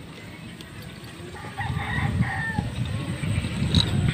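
A rooster crows about a second and a half in. Under it a low rumble comes in and stays the loudest sound.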